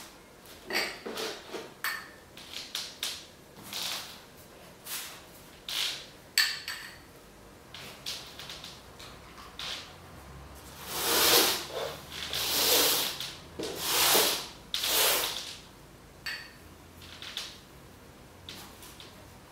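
Handling and working sounds of painting tools: short taps, knocks and scrapes, then four louder scraping or hissing strokes of about a second each in the middle.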